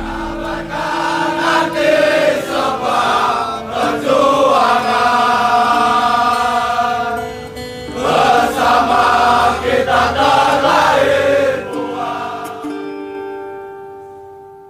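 Music with a group of voices singing together in chorus over sustained notes, fading out over the last few seconds.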